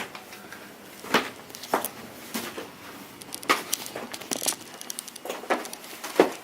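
Footsteps climbing stairs: irregular knocks and crunches, about one every half-second to second, in a small room.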